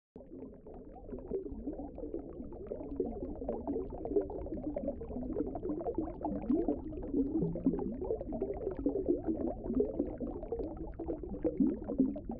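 Underwater bubbling sound effect: a dense stream of small bubbles burbling over a low rumble, growing gradually louder over the first few seconds.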